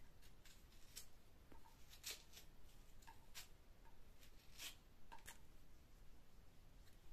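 Small kitchen knife cutting and peeling the dry skin off an onion: a faint series of short, crisp scrapes and crackles at irregular intervals.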